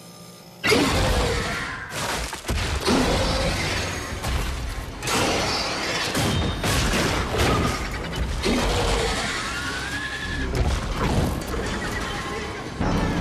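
Film sound effects: loud metallic crashing and clanging with gliding creature screeches, bursting in suddenly about half a second in and running on densely.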